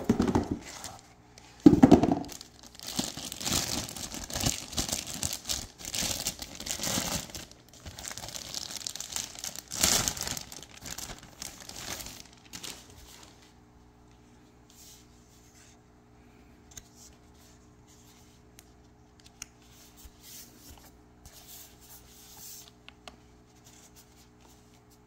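Clear plastic packaging bag crinkling and rustling loudly as a laptop is pulled out of it and its cardboard pulp inserts, with sharp crackles. After about twelve seconds it dies down to faint occasional clicks and rustles over a low steady hum.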